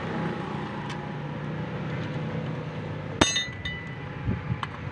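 A small metal part or tool clinks once against the alternator's housing with a brief metallic ring about three seconds in, with fainter ticks before and after, over a steady low background hum.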